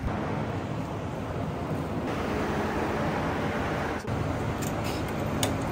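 Steady rushing air noise of a running fan with a low steady hum, with a few light clicks and handling sounds near the end.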